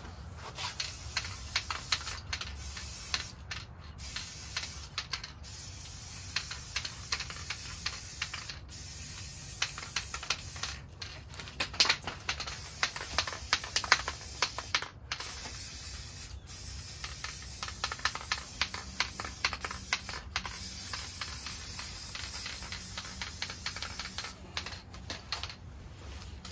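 Aerosol spray paint can hissing in repeated bursts, stopping briefly between passes. Many light clicks and ticks run through the hiss.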